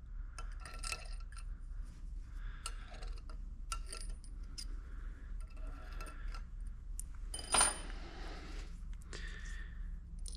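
Small steel valve parts and tools clinking and tapping as a transmission pump's valves are handled and set down, with one louder ringing metal clink about seven and a half seconds in.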